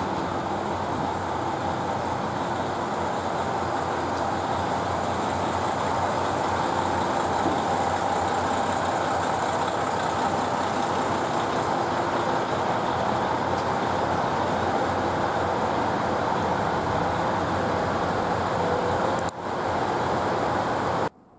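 KiHa 110 series diesel railcar running: a steady engine and rolling noise that dips briefly near the end, then cuts off abruptly.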